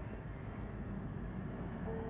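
Faint, steady sound from an older Kawasaki Ninja 250 FI fuel tank: fuel vapour escaping through the gaps of the tank cap, whose rubber seal has hardened with age. The owner considers this normal when the tank is low and the fuel sloshes. A steady tone comes in near the end.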